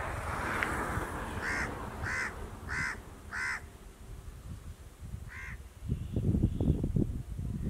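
A crow cawing: four harsh caws about two-thirds of a second apart, then one more a couple of seconds later. Gusts of wind rumble on the microphone, loudest near the end.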